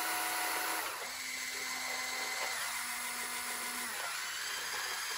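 Small electric motors of a remote-controlled Lego Technic excavator model whining as its arm digs in. The pitch steps to a new level about a second in, again about halfway, and once more near the end.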